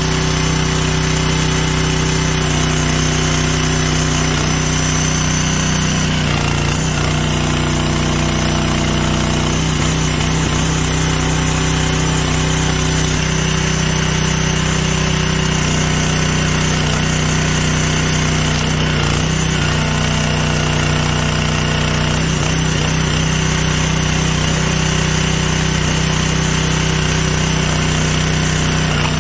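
Briggs & Stratton 6.5 HP petrol engine on an 18-ton hydraulic log splitter running steadily, driving the hydraulic pump while logs are split. Its note shifts briefly a few times.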